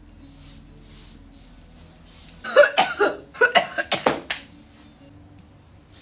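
A person coughing in a run of about eight coughs, starting about two and a half seconds in and lasting about two seconds, after a long vape hit. Faint music plays underneath.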